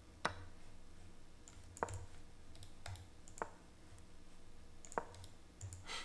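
Computer mouse clicking: about six short, sharp clicks at uneven intervals as chess moves are made quickly in an online game, over a faint low hum.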